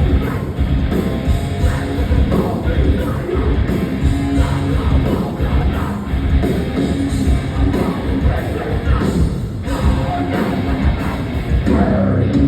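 A heavy band playing live at loud volume: distorted guitars, drums and vocals.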